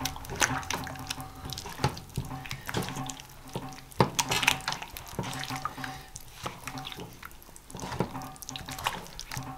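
Raw chicken drumsticks being mixed by hand with spices in a bowl: irregular handling noise with many sharp clicks and knocks.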